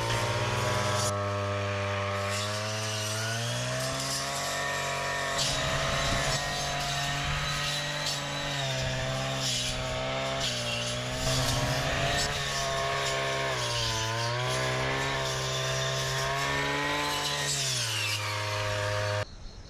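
Two-stroke chainsaw running under load, its engine speed rising and falling repeatedly as it cuts through a storm-felled tree. It cuts off abruptly near the end.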